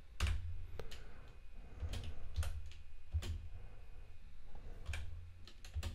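Computer keyboard being typed on slowly: about eight separate key presses at uneven intervals.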